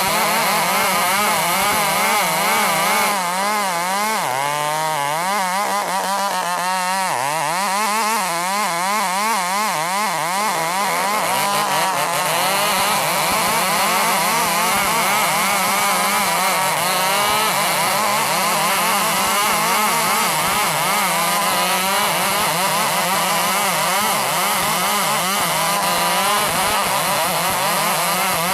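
Two big 105 cc chainsaws running hard under load, ripping timber into boards. Their engine pitch wavers constantly as the chains bite, and the two engines overlap at slightly different pitches.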